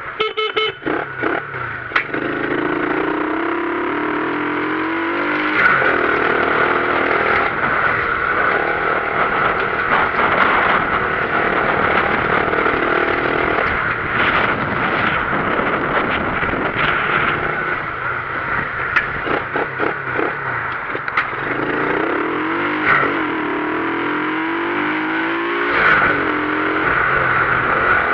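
Motorcycle being ridden, its engine note rising and falling with the throttle over steady wind and road noise, with some brief clattery knocks. The bike's exhaust has a loose bolt, the cause of the strange noise it is making.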